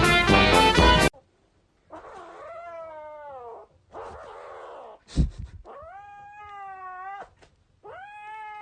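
A domestic cat yowling: four long, drawn-out caterwauls about a second and a half each, with a sharp knock between the second and third. A snatch of music cuts off about a second in, before the first yowl.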